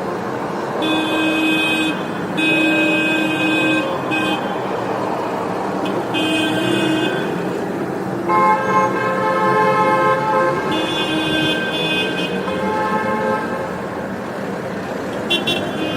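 Car horns honking in traffic: repeated blasts of one to two seconds from at least two horns of different pitch, over a steady hum of road traffic. The longest blast comes about eight seconds in, and two short toots come near the end.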